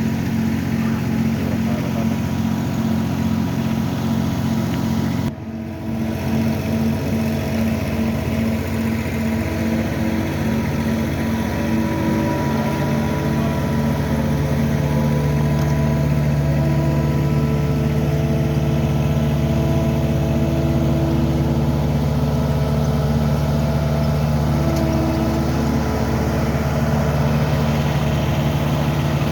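Heavy construction machinery engines running steadily, with a brief dip in level about five seconds in.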